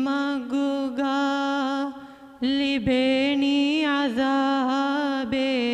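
A teenage boy singing a madhaha, a Maldivian Islamic devotional song, solo and unaccompanied into a microphone. He holds long notes and ornaments them with bends in pitch, and breaks off briefly for a breath about two seconds in.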